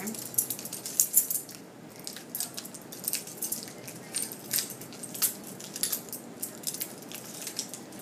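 A bunch of metal keys jingling and clinking as their key rings are clipped onto a carabiner. The clicks are irregular, and the loudest come about a second in.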